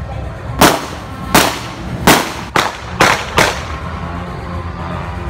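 Firecrackers going off: six sharp bangs at uneven intervals over about three seconds.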